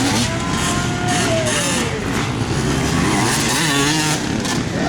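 Several off-road dirt bike engines revving. Their pitches rise and fall and overlap as the bikes accelerate and pass.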